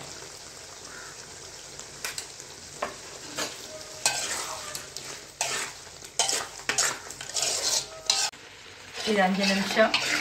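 A spoon stirring and scraping a thick tomato masala in a metal pot, over a steady frying sizzle. The scrapes and clinks against the pot come thick and fast from about four seconds in.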